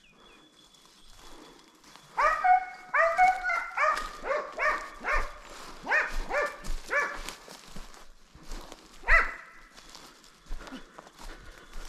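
Hunting hound barking: a quick run of about a dozen barks, then a single bark a couple of seconds later. It is giving voice on a hare.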